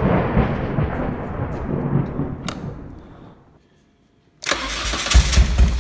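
A thunder sound effect rumbles and dies away over about three seconds. After a second of near silence, the Saturn's engine, now fed by a lawnmower carburetor, is cranked over by its starter about four and a half seconds in.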